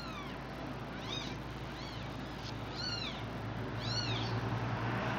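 Five-day-old kitten mewing: about five short, high-pitched cries roughly a second apart, each rising and then falling in pitch.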